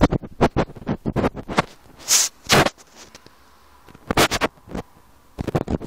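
Handling noise: fingers rubbing and scraping over a phone's microphone in irregular bursts, with a quieter stretch in the middle.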